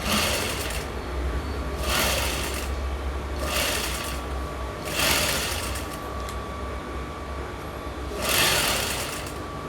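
Electric sewing machine stitching in several short runs, each under a second, over a steady low hum.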